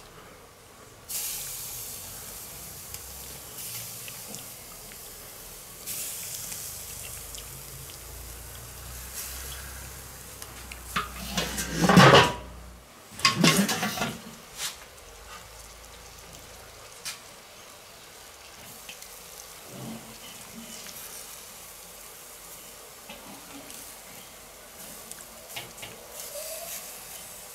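Raw chicken breasts sizzling on the hot grate of a charcoal kettle grill after being moved over the coals with metal tongs, with a few clicks from the tongs and two loud clattering bursts about halfway through.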